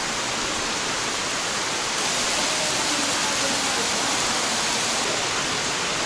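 Steady rush of a large waterfall: an even hiss of falling water with no breaks, a little louder about two seconds in.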